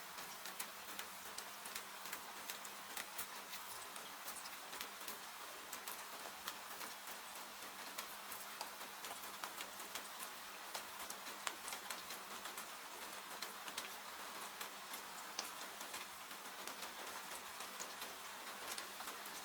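Steady rain hiss with frequent small, sharp crackles of a wood fire scattered through it.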